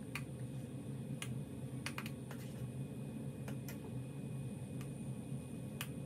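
Metal teaspoon clinking and tapping against the grinder cup and the moka pot's metal filter basket while ground coffee is scooped in: light, irregular clicks, several seconds apart or in quick pairs, over a steady low hum.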